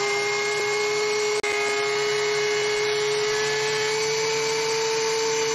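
DeWalt benchtop thickness planer running and planing a reclaimed oak board: a loud, steady whir of the cutter head and motor, with a hum whose pitch creeps up slightly.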